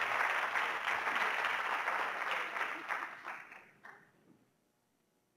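Audience applauding, thinning out and dying away about four seconds in.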